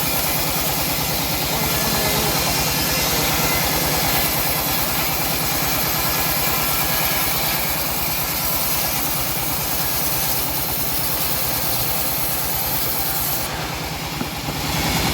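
Homemade engine-driven bandsaw cutting through a teak log: a steady rasping hiss of the blade in the wood over the engine's fast, even low pulse. Near the end the high hiss drops away briefly.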